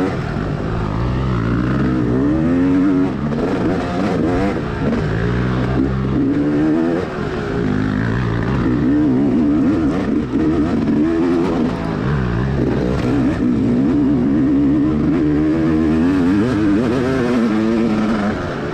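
Dirt bike engine being ridden hard along a trail, revving up and down again and again as the throttle opens and closes, its pitch rising and falling every second or two.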